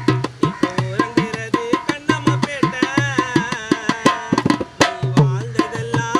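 Hand-played dholak (two-headed barrel drum) in a quick, steady beat, with deep booming strokes recurring through it, under a wavering melody line.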